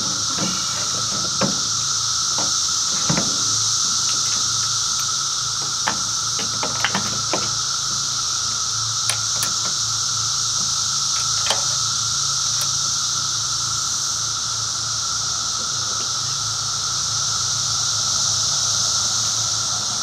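Scattered light clicks and knocks as a plastic water tank on a Wood-Mizer band sawmill is set onto its mount and its fittings adjusted, over a steady high hiss.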